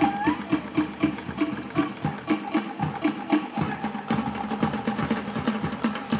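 Fast Polynesian drumming with evenly spaced beats, about five a second. A held high note rises and breaks off just after the start.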